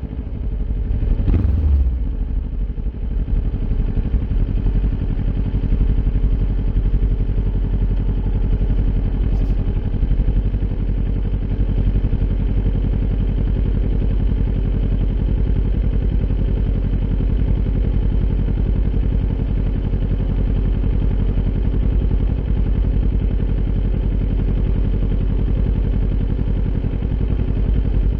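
Kawasaki Ninja 400's parallel-twin engine through an Akrapovic aftermarket exhaust: a short rev about a second in, then running steadily at low, even revs.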